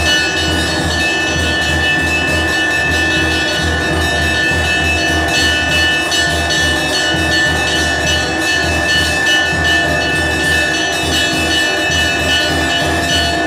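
Hindu temple bells rung rapidly and continuously during worship at the shrine, a dense clangour of strikes with steady ringing tones, over a low pulsing beat.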